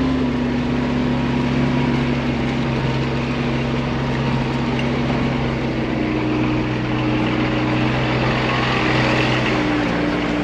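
Diesel engine of a Case IH Quadtrac tractor running with a steady drone while the tractor pulls a drainage-tile plow, heard from inside the cab.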